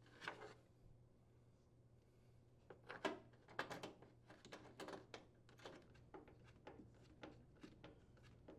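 Near silence broken by faint, irregular clicks and scrapes, mostly from about three seconds in, as a screwdriver turns the long mounting bolts through the wooden cabinet floor into a microwave.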